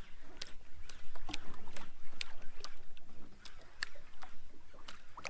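Small waves slapping against the hull of a drifting fishing boat: sharp, irregular splashes, two or three a second, over a steady low rumble.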